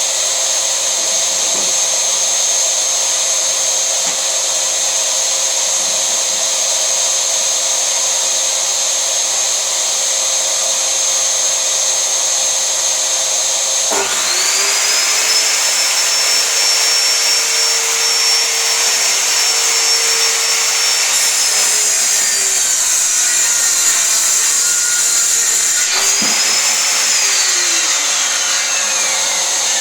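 Circular saw motor on a homemade vertical panel saw, heard over a steady whirring motor noise. About halfway through it spins up with a rising whine and runs steadily, slows a little, cuts out suddenly, then spins up again and winds down with a long falling whine near the end.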